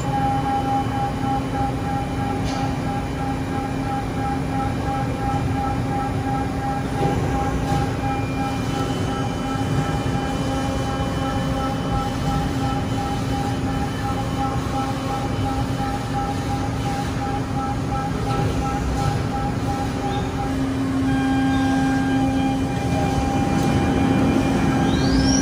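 Makino DA300 five-axis vertical machining centre milling a metal part under flood coolant: the spindle and cutter give a steady tone over a rumbling hiss of coolant spray and machine noise. The tone shifts about twenty seconds in, and a rising whine comes near the end.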